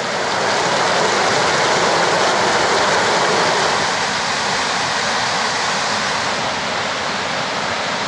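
Whitewater river rapids rushing loudly over boulders, a steady wash of water noise that drops a little in level about halfway through.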